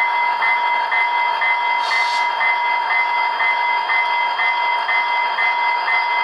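ESU LokSound sound decoder in an HO-scale F40PH-2D model locomotive, through its small speaker: diesel locomotive running sound with a steady whine and a bell ringing about twice a second, and a short hiss about two seconds in.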